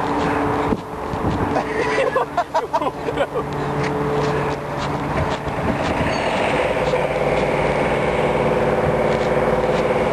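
A motor vehicle's engine running close by: a steady hum that becomes fuller and more even about six seconds in.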